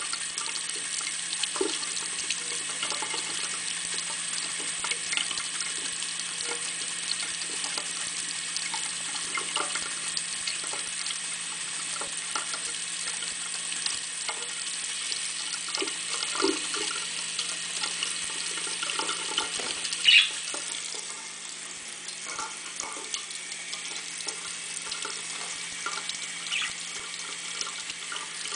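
Bathroom tap running steadily into a sink while a budgie splashes and flaps in the shallow water. A brief sharp sound stands out about two-thirds of the way through, after which the running water is a little quieter.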